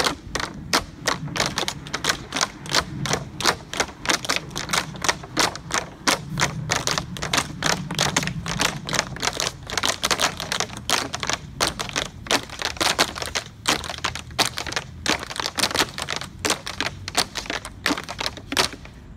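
A group of tap dancers' tap shoes striking wooden boards laid on a sidewalk, dancing the Shim Sham together: a long, rhythmic run of sharp taps, several a second.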